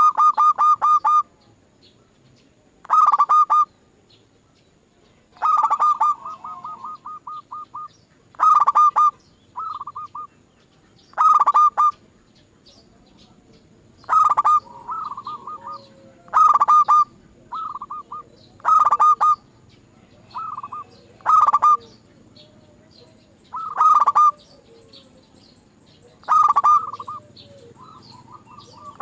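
Zebra dove (perkutut) cooing: a loud phrase of quick repeated notes about every two and a half seconds, each often trailed by softer, shorter notes.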